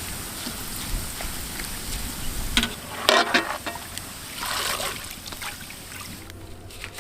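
Chopped onions frying in hot oil with a steady sizzle. Three louder noisy surges come about two and a half, three and four and a half seconds in.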